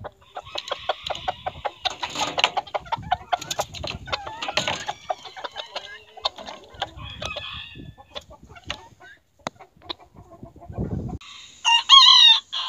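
Chickens clucking over a quick run of sharp clicks and taps as a bird pecks in its water bowl, then a low thump, and near the end a rooster crowing loudly once.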